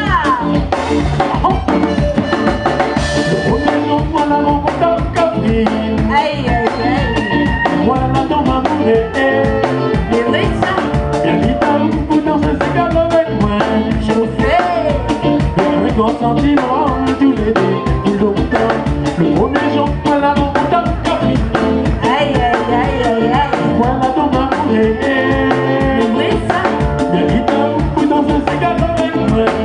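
Live band playing: a woman and a man singing over a drum kit, electric guitar and bass guitar, with a steady, busy beat.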